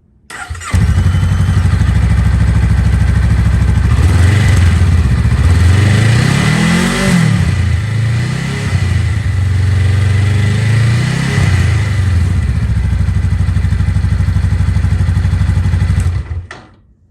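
Honda Rebel 500's parallel-twin engine idling on its stock exhaust, blipped twice so the pitch climbs and falls back, the first rev higher than the second. The sound comes in sharply about a second in and cuts off near the end.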